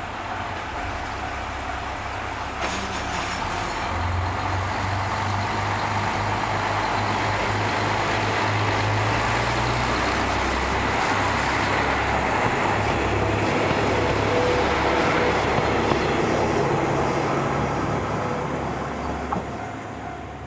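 Diesel railcar pulling away: its engine throttles up with a low drone about four seconds in, then the rumble of the cars rolling past builds and fades away near the end.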